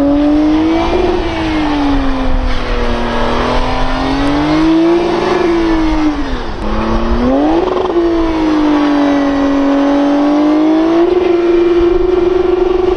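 Car engine revving up and down again and again, its pitch climbing and falling in long swells with a sharp drop and quick climb about halfway, then holding at a steady high pitch near the end.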